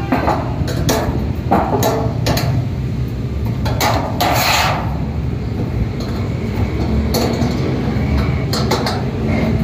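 Metal clinks and knocks as the steel feed-support rods of a satellite dish are handled and fitted to the dish's metal rim and their nuts fastened. There are many separate sharp taps, with a short scraping rush about four seconds in.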